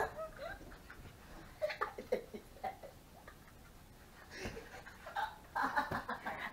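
Stifled laughter in short, faint bursts, growing louder near the end, with a soft thump about four and a half seconds in.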